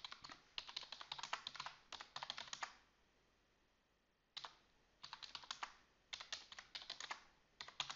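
Typing on a computer keyboard: quick runs of key clicks, with a pause of about a second and a half midway.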